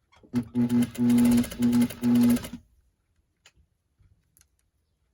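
Sewing machine running in several short bursts of stitching over about two seconds, then stopping, topstitching a folded collar piece; a few faint clicks follow.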